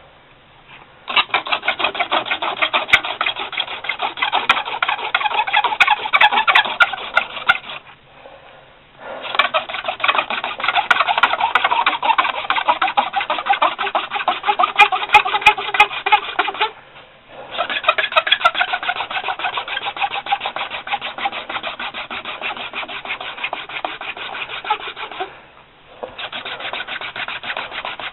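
Hand-drill friction fire: a wooden spindle spun rapidly back and forth between the palms, grinding against a baseboard made of two branches. It comes in four runs of several seconds each, with a brief pause between runs.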